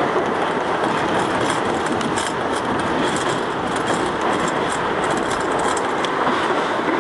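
R62A subway train running through a tunnel and into a station, heard from inside the car: a steady rumble of wheels on rail with a scatter of sharp high clicks from the wheels and track.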